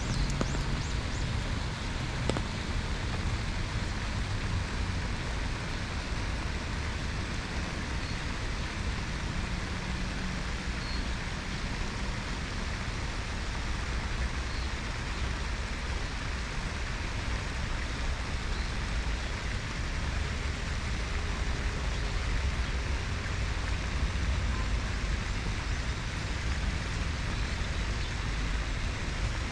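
Steady rainfall hissing evenly, with a continuous low rumble underneath.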